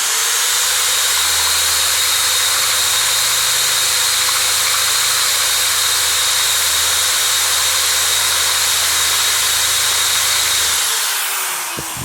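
Single-speed, high-torque electric drill (650 RPM) running steadily under load as it bores out a hole with a large bit, then switched off about eleven seconds in and spinning down in falling pitch. The bit was taken up in one step from a much smaller hole, without an intermediate size.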